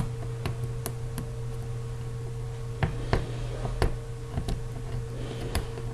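Scattered small, sharp clicks and ticks, about eight of them, of a small screwdriver working at a corner screw in an iPhone 4S's bare metal frame, over a steady low electrical hum.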